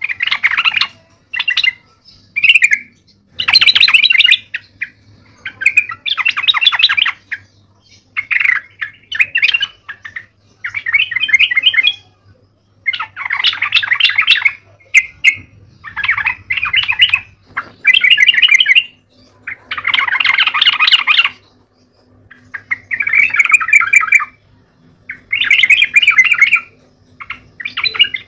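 Yellow-vented bulbul in full song: a steady run of rapid chattering phrases, each about a second long, with short gaps between them.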